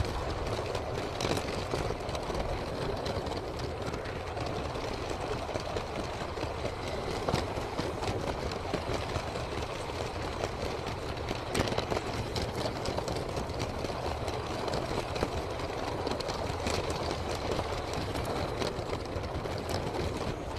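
Motorised Lego train running: a steady mechanical noise from its small electric motor and wheels, with an occasional sharp click.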